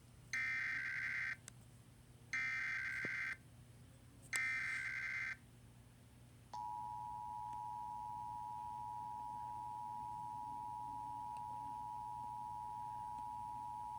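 Emergency Alert System broadcast tones: three one-second buzzing bursts of SAME digital header data about a second apart, then, from about six and a half seconds in, the steady two-tone attention signal. They herald a National Weather Service tornado warning.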